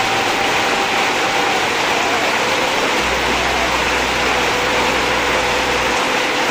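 Heavy rain pouring onto a clay-tile roof and running off the tile edges as a steady, dense rush of splashing water.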